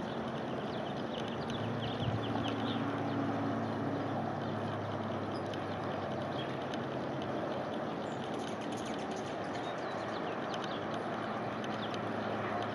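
Steady outdoor background noise with a low engine hum through the first half, and a few faint high chirps in the first few seconds.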